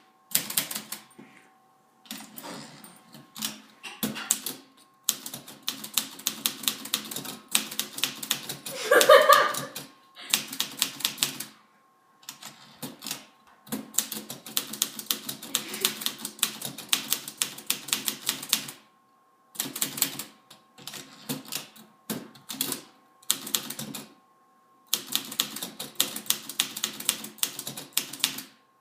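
Typewriter keys struck in fast runs of clatter that stop and start every second or few seconds. About nine seconds in, a brief pitched vocal sound rises over the typing and is the loudest moment.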